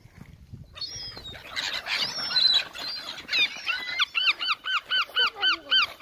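Gulls and other waterbirds calling as they crowd around for food: a jumble of cries starts about a second in, then one bird gives a quick run of repeated call notes, about three a second, through the last few seconds.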